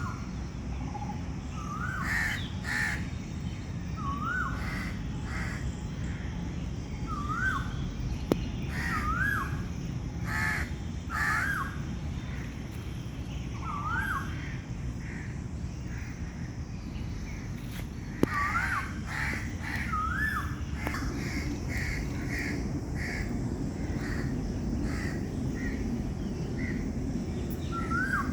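Crows cawing in bursts. Another bird gives a short, rising-and-falling whistled note about every two seconds, over a steady low background rumble.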